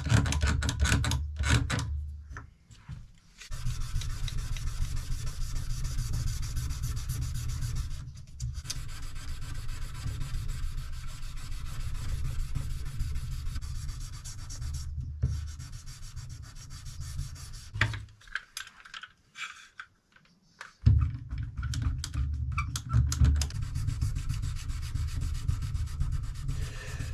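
Fast back-and-forth rubbing strokes worked by hand on a Damascus knife blade, in several long runs broken by short pauses.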